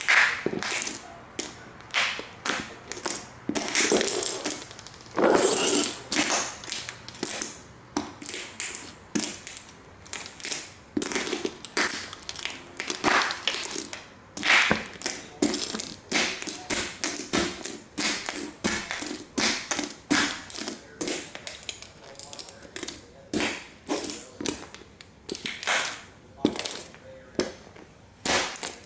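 Sneaker soles stomping over and over on tiny model toy cars on a wooden floor, one to two sharp crunching taps a second as the little car bodies break into pieces.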